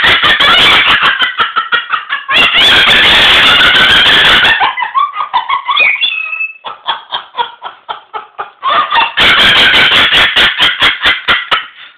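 Moluccan cockatoo laughing loudly: runs of rapid, short, harsh pulses, broken by a continuous harsh call about two seconds long and a few rising and falling squawks in the middle.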